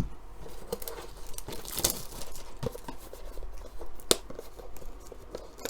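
Cardboard and plastic wrapping of a trading-card blaster box being handled and torn open, with irregular crinkling, scraping and sharp clicks, one louder snap about four seconds in.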